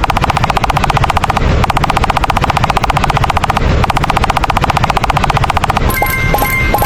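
A fast, even rattle of sharp strokes, like rapid automatic fire, with two brief breaks. Near the end it gives way to a ringing, tone-like pattern.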